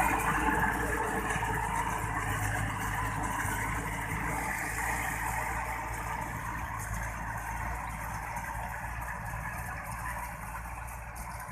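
A motor vehicle's engine running, its sound fading steadily as it moves away.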